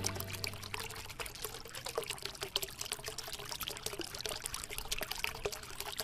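The song's final chord dies away at the start, then water trickles and splashes steadily: a dense patter of small irregular drops.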